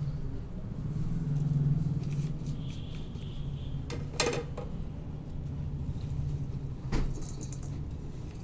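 Two sharp clinks of plates against a stainless steel mixing bowl as ingredients are tipped in. The first, about four seconds in, rings briefly; the second comes about seven seconds in. Both sit over a steady low hum.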